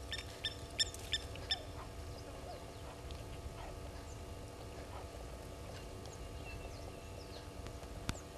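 Blacksmith lapwing calling a quick series of sharp metallic "tink" notes, about three a second, for the first second and a half. Fainter scattered bird chirps follow.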